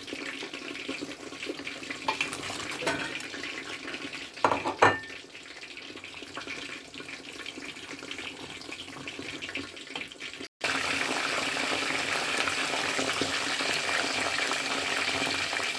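Kitchen cooking sounds: pots and utensils clatter and clink, with one louder clank about five seconds in. After a sudden cut, a steady rush of water runs for the last few seconds.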